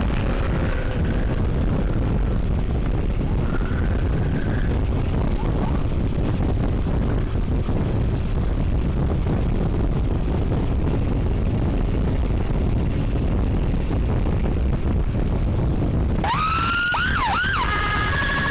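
Steady wind and road rumble from a moving motorcycle, with a faint rising siren wail twice in the first few seconds. About two seconds before the end, a loud electronic emergency siren starts up with fast sweeping wails.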